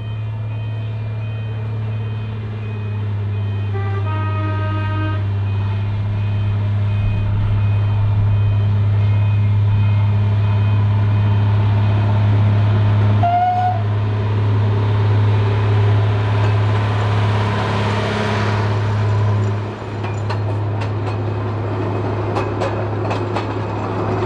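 Narrow-gauge Bo-Bo diesel locomotive running steadily with a low engine hum as it approaches and passes, growing louder about 18 seconds in. A level crossing alarm beeps over it for the first few seconds, a short horn toot sounds about four seconds in, and the coach wheels click over rail joints near the end.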